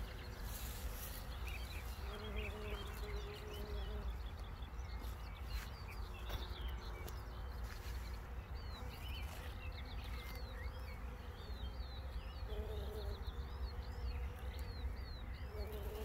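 A bumblebee buzzing around flowers, passing close a few times, while small birds chirp in quick short notes. A low wind rumble on the microphone runs underneath.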